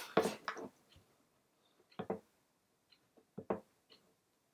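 A handful of faint, scattered clicks from a computer mouse and keyboard being used, spaced irregularly over a few seconds.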